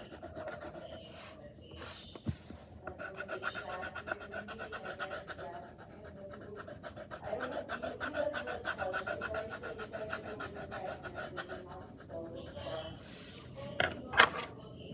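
Rapid back-and-forth scribbling of a drawing tool on paper as an area is coloured in, many strokes a second, stopping about twelve seconds in. A few sharp taps near the end, one of them the loudest sound.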